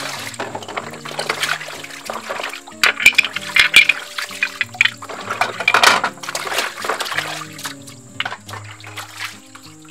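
Tap water pouring and splashing in a plastic basin as hands scrub shellfish (crabs and spiny conch shells) in the water. The sloshing is loudest in clusters in the middle.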